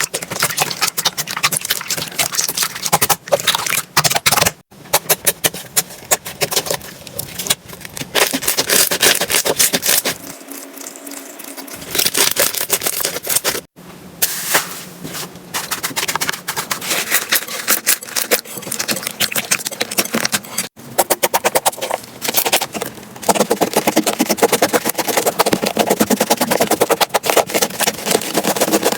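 Slime being squeezed, pressed and poked by hand, giving dense rapid crackling and clicking pops. The sound breaks off abruptly several times, about a third of the way in, about halfway and about two-thirds through, as one clip gives way to the next.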